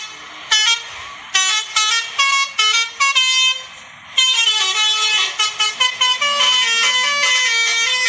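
Bus 'telolet' multi-tone musical horn playing a melody: separate short notes over the first few seconds, a brief lull about four seconds in, then a faster unbroken run of changing notes.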